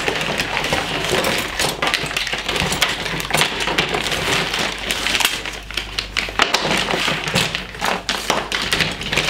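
Hard moulded plastic RC kit parts on their sprues clattering and tapping against each other and the tabletop as they are handled and laid out, a dense run of small clicks and knocks.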